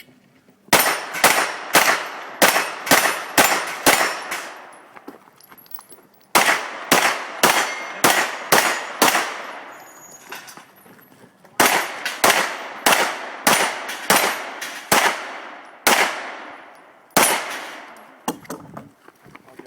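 Pistol shots fired in quick strings, about two a second, each cracking and echoing away. There are three strings with pauses of about two seconds between them, and one last shot near the end.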